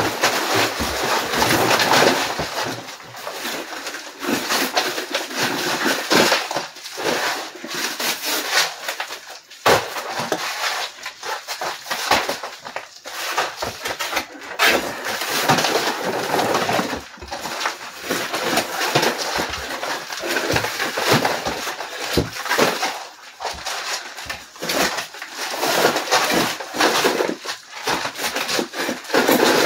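Horsehair plaster being pried and scraped off wooden lath, with a dense, irregular run of cracks and clatter as pieces break away and fall.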